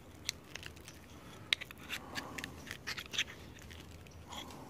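Screwdriver prying and picking copper magnet wire out of a CRT television's deflection yoke: faint, irregular clicks, scrapes and crackles of the wire and the metal tool.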